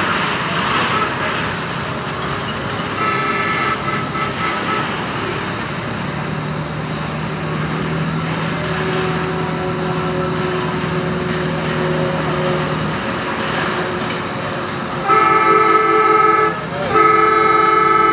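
Horn of the Silver Speed miniature-gauge diesel streamliner locomotive, sounding two long blasts near the end as the train approaches, after a fainter short toot about three seconds in. The approaching train's steady running noise lies underneath.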